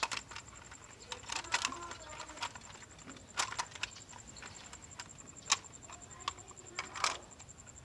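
Diecast toy cars being handled, clicking and clacking against each other in an irregular run of sharp knocks.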